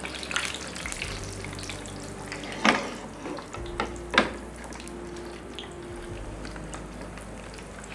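Battered pakoras sizzling as they deep-fry in a karahi of hot oil, with two sharp clinks of a metal utensil, a little under three seconds in and again about a second later.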